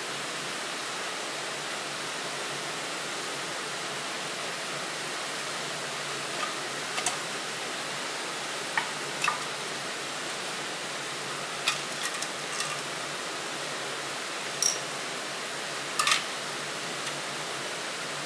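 Short metallic clicks and clinks as the tin case of an Optimus 8R petrol stove is opened and its parts are handled, scattered from about six seconds in and loudest near the end. A steady background hiss runs under them.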